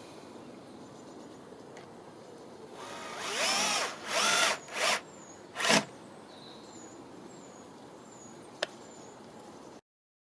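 Power drill run in four short bursts, its motor whine rising as the trigger is squeezed; the first burst is the longest.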